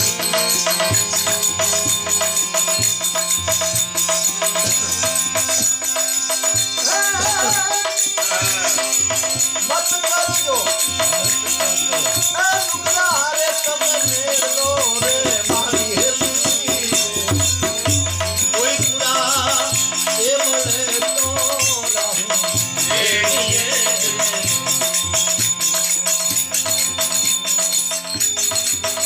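Gujarati bhajan music: a male singer's voice gliding through ornamented phrases over held accompaniment notes and steady rhythmic percussion. The voice comes in several seconds in and drops out a few seconds before the end, leaving the accompaniment playing.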